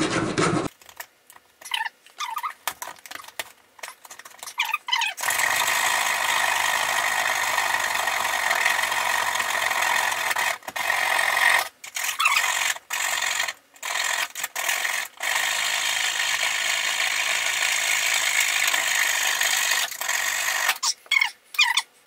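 A saw with a metal-cutting blade cutting through the nails that hold an electrical wall box to a wooden stud. First a few seconds of scraping and clicking as the blade is worked into the gap, then about five seconds in a steady cutting noise that stops briefly several times.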